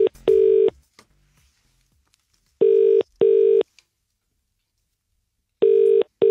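British telephone ringback tone: a double ring of two short, steady, low buzzing tones in quick succession, repeated three times about three seconds apart, as an outgoing call rings before it is answered.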